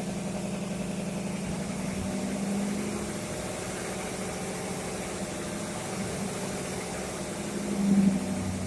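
Fire pump engine running steadily, swelling louder for a moment near the end.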